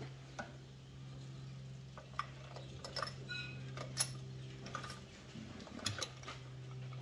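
Scattered light metallic clicks and taps of diesel engine valvetrain parts being handled and seated as rocker arm and Jake brake assemblies are fitted onto the cylinder head, over a steady low hum.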